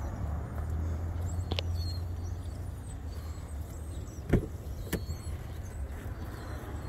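Driver's door of a Chevrolet Avalanche being opened: the door handle clicks, then the latch releases about half a second later. A steady low rumble runs underneath.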